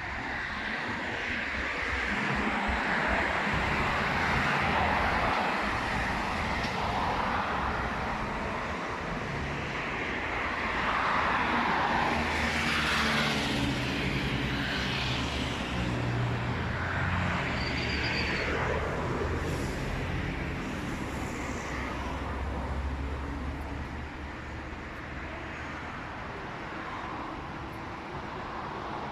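Street traffic: vehicles passing in swells of road noise. A heavier engine hums low through the middle stretch.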